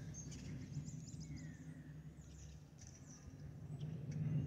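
Small birds chirping over the faint, steady low hum of an approaching Airbus A320 airliner; the hum grows louder over the last second as the jet draws near.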